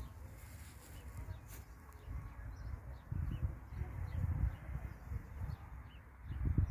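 Wind buffeting the microphone in uneven low rumbling gusts, strongest from about three seconds in and again near the end, over faint outdoor bird calls.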